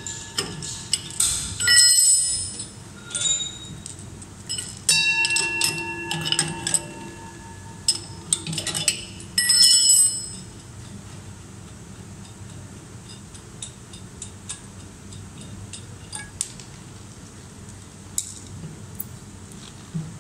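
Stainless-steel parts of a SCIENTZ-150 high-pressure homogenizer's valve block clinking and ringing as they are loosened and pulled out by hand. The clinks come in quick runs through the first half, then only occasional light ticks.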